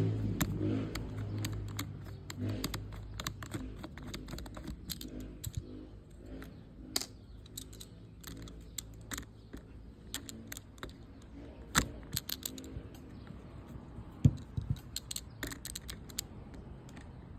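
Irregular light clicks and clinks of small fishing-reel parts and tools being handled, with a few sharper clicks about 7, 12 and 14 seconds in.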